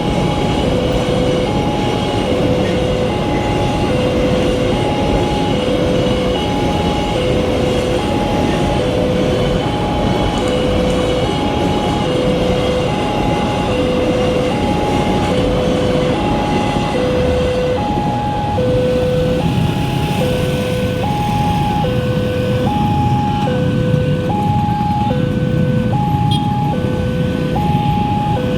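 Railway level-crossing warning siren sounding a repeating two-tone alternation, a lower and a higher note taking turns evenly, of the newer, higher-pitched type. Beneath it runs the heavy rumble of a passing train and road traffic.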